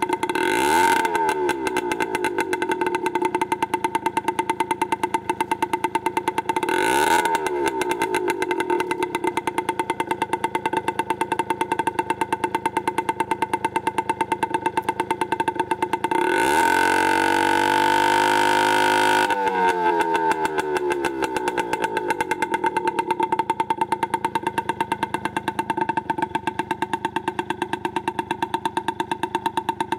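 Scooter engine idling through a Tecnigas aftermarket exhaust. It is blipped briefly about a second in and again about seven seconds in, then revved and held high for about three seconds from about sixteen seconds in before dropping back to idle.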